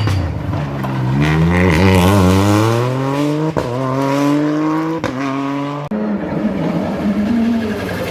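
Rally2 car's turbocharged four-cylinder engine under hard acceleration, its pitch rising, then shifting up with quick cuts about three and a half, five and six seconds in, dropping to a lower wavering note near the end.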